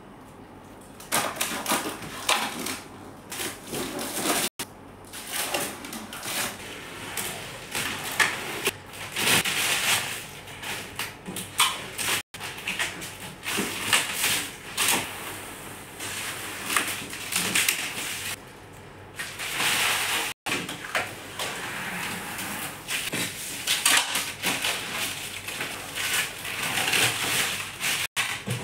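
Irregular crackling, rustling and scraping from hands at work on aluminium cabinets, including plastic protective film being torn away. The sound breaks off abruptly several times.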